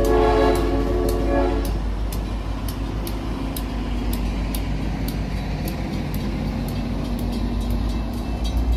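Shore Line East GP40-3H diesel locomotive sounding its air horn, the chord cutting off about a second and a half in, then its diesel engine rumbling steadily as the train rolls past. A grade-crossing bell dings about twice a second throughout.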